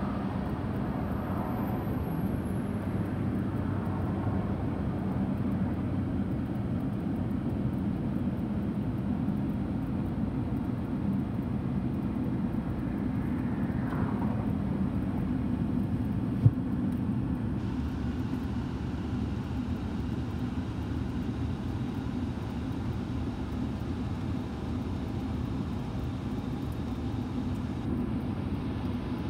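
Steady road and engine noise inside a moving car's cabin, low and even throughout, with a single sharp click a little past the middle.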